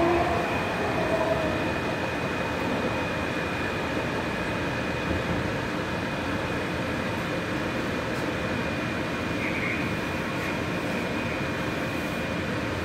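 AirTrain JFK people-mover car running along its elevated guideway, heard from inside the car: a steady rolling rumble with a constant high whine over it.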